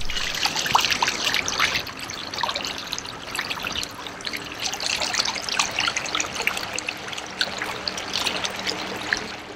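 Water trickling and splashing in a quick, irregular patter of small drips and splashes, louder in the first couple of seconds, with a faint steady low hum underneath.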